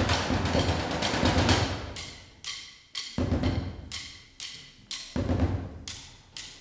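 Percussion ensemble playing drums: a dense rhythmic passage that thins out about a second and a half in to separate strikes that ring and fade, with deep drum hits landing about three and five seconds in.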